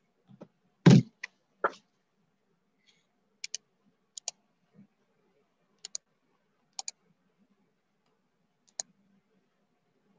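A loud thump about a second in and a softer knock just after, then five pairs of short, sharp clicks a second or two apart: someone clicking at a computer.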